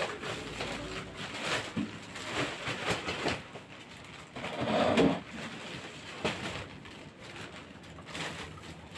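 Large plastic bag rustling and crinkling, with tinsel garlands and artificial Christmas tree pieces pushed and packed into it by hand; it is loudest about five seconds in.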